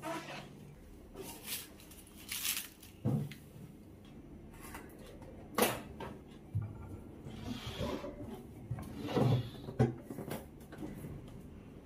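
Handling noises of a wooden chopping board and a microwave oven being moved on a kitchen counter: scattered knocks and clatters, the sharpest about 5.5 and 9.5 seconds in, with a longer scrape around 8 seconds.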